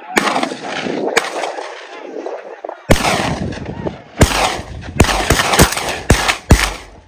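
A string of about ten gunshots fired at a running wild boar in a driven hunt: a few spaced shots, then rapid shots one after another near the end.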